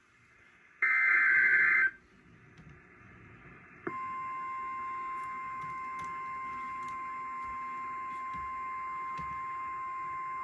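Emergency alert signal from a NOAA Weather Radio broadcast. It opens with the last of the harsh, warbling data bursts of the digital alert header, about a second long. After a short stretch of faint hiss, the steady single-pitch warning alarm tone starts about four seconds in and holds. Together they announce a new warning.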